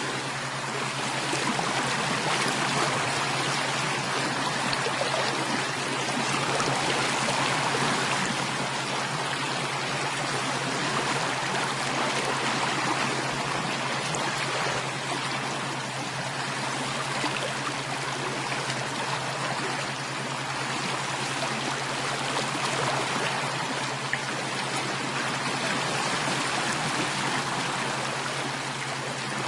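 Flowing water of a stream, a steady rushing and trickling with no pauses, over a steady low hum.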